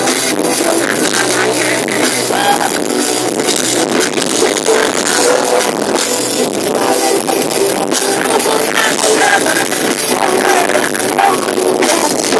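Live band music played loud through the stage's PA speakers: drum kit and electric guitar with keyboards, continuous.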